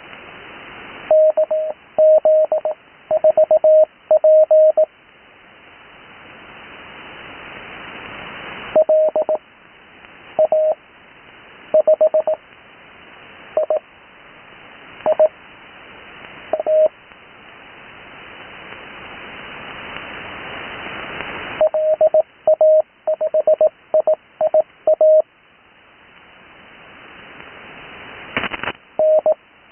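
Morse code (CW) signal on the 80 m amateur band heard through an HF receiver: a steady single-pitch tone keyed in dots and dashes, sending call signs in several quick clusters separated by long pauses. Background band hiss grows louder during each pause and drops away when the tone keys again.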